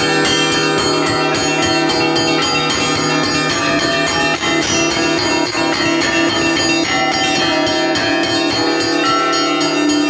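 Orthodox church bells rung up close inside the belfry: several bells struck rapidly and continuously, their ringing tones overlapping into a dense peal, rung for the start of the Sunday liturgy.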